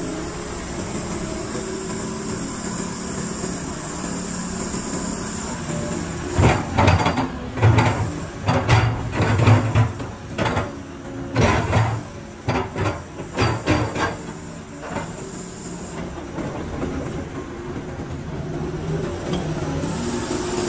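Doosan DX225LCA crawler excavator's diesel engine running steadily. From about six seconds to fifteen seconds a run of loud clunks and knocks rises over it as the boom, arm and bucket are worked.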